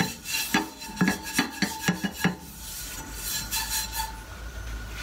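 Pastry brush swept back and forth across a non-stick frying pan, spreading oil: a quick run of scratchy strokes for about the first two seconds, then softer, fainter brushing.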